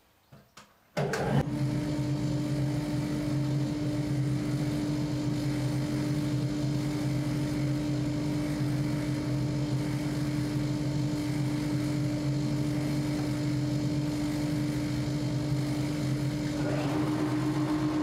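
Electric jointer switched on about a second in, its motor and cutterhead then running steadily at idle with a constant hum, no board yet being cut.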